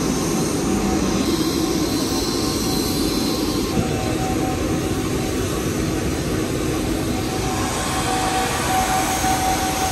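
Steady rumble and hiss of a passenger vehicle's cabin while it runs, with a faint steady whine.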